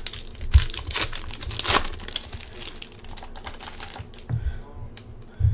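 Foil trading-card pack crinkling and tearing as it is torn open by hand, a dense crackle for the first two seconds, then lighter rustles and clicks as the cards are slid out of the wrapper.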